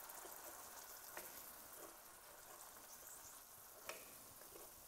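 Faint sizzling of a roux-and-vegetable mixture in a pan as it is stirred, with a few light taps of the spoon against the pan.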